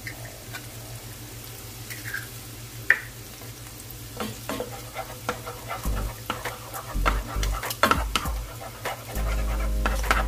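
Spoon scraping and clattering against a frying pan as shrimp and crab paste are moved around and sizzle in oil. The first few seconds are quieter, with one sharp click about three seconds in; from about four seconds in the scraping and tapping come thick and fast.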